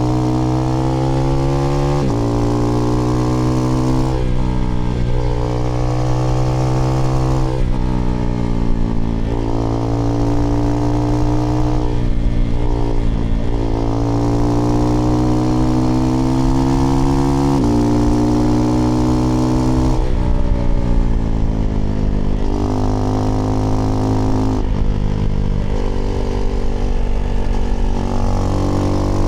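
Husqvarna Svartpilen 401's single-cylinder four-stroke engine, breathing through an IxRace Mk.2 aftermarket exhaust with a modified dB killer, pulling hard on the road. Its pitch climbs through each gear and drops sharply at each upshift, several times over.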